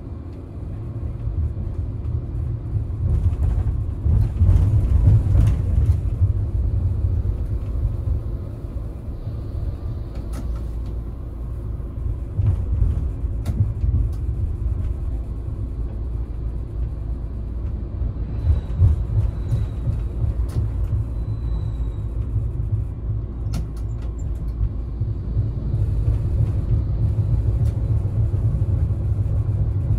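Electric tram running along street track, heard from inside the driver's cab: a steady low rumble of motors and wheels on the rails, loudest a few seconds in, with a few sharp clicks along the way.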